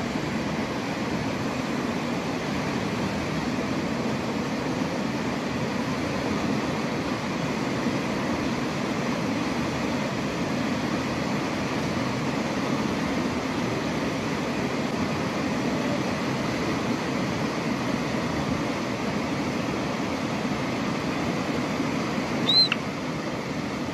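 A steady rushing background noise, with one short, high-pitched squeak about three-quarters of a second from the end, plausibly from a baby monkey.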